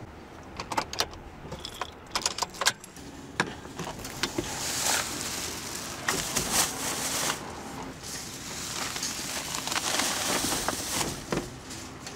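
Groceries being loaded into the back of a pickup truck: plastic grocery bags rustling, a gallon jug and other items knocking and clattering. There is a quick run of sharp clicks and knocks over the first few seconds, then a long rustling with occasional knocks.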